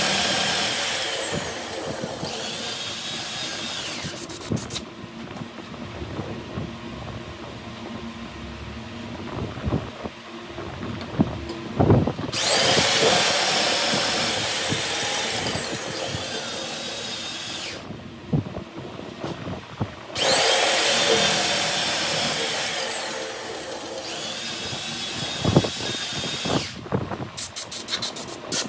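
A high-speed power tool is run three times for several seconds each, grinding or cutting metal. Each time its whine falls in pitch as the motor winds down. Scraping and knocks of metalwork come between the runs.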